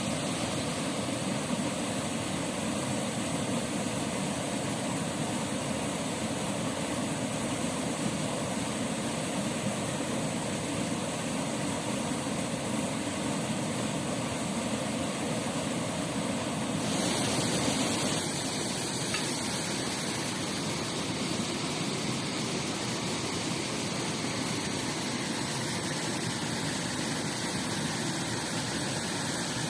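Steady rush of flowing water from a river and waterfall, changing character abruptly about 17 seconds in.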